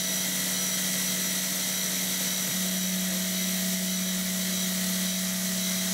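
A 40 mm four-insert face mill on a CNC mill facing a 6082 aluminum plate. Steady cutting hum with a constant low tone and a high whine, the low tone shifting slightly about two and a half seconds in.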